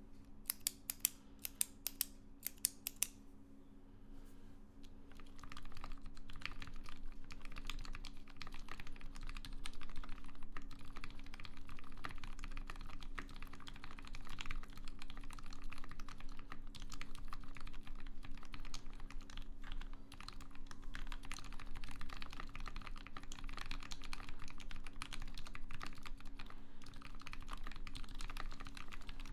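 Continuous typing on a TX75v2 mechanical keyboard with a brass plate, GMK keycaps and JWK silent switches lubed with Krytox, starting about five seconds in and running at a steady pace. Before it, in the first three seconds, come a handful of sharp, crisp clicks.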